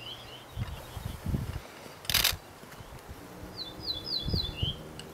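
Male ortolan bunting singing: the end of one phrase at the very start, then a full phrase about four seconds in, four quick repeated high notes each sliding down, closing on a lower slurred note. A short burst of noise about two seconds in is the loudest sound, with low rumbling in between.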